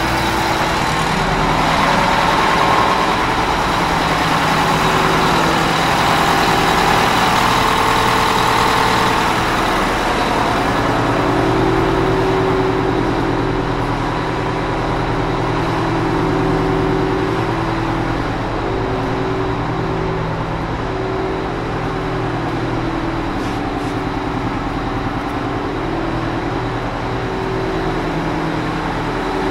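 M1070 8x8 heavy equipment transporter truck's diesel engine idling steadily.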